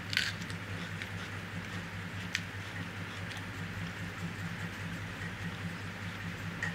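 A person eating by hand: chewing with a few short, sharp wet mouth smacks, the loudest just after the start and another about two and a half seconds in, over a steady low hum.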